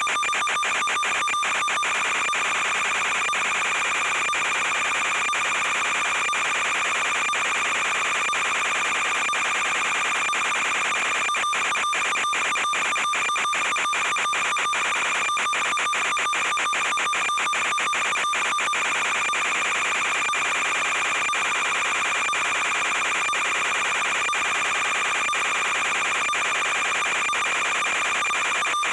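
Steady electronic buzz with several fixed high-pitched tones and rapid crackling clicks, unchanging in level: interference noise on the audio of the recorded FPV video downlink.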